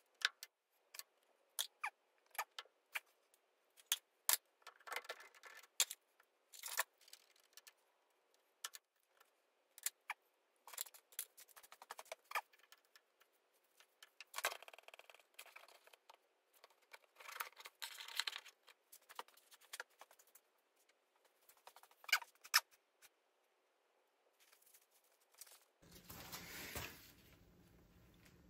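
Small metal parts and hand tools clinking and tapping in irregular sharp clicks as a machine is taken apart by hand, with a short rubbing scuff near the end.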